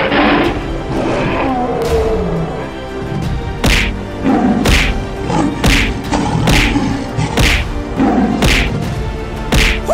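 Dramatic background music with heavy thuds and whacks. In the second half the hits fall about once a second.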